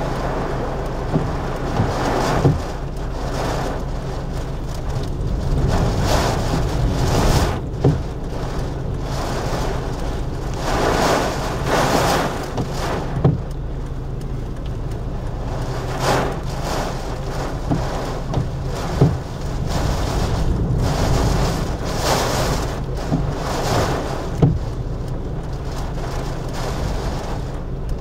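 Inside a car driving through heavy rain and wind: a steady low engine and road drone, with rushes of rain and wind that swell every second or two. A few sharp thumps fall at irregular moments.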